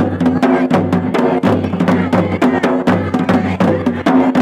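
Dance music with a fast, even beat of drum hits and sharp clicking percussion under a melody that changes note every fraction of a second.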